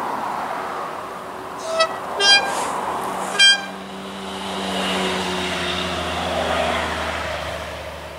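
A diesel train sounds its horn in three short toots in quick succession. Its engine drone then grows louder as it approaches and eases slightly near the end.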